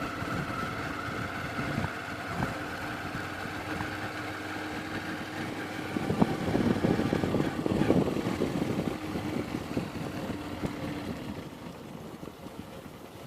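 Motorcycle engine running while riding, a steady drone that grows louder and rougher for a couple of seconds around the middle, then eases off near the end.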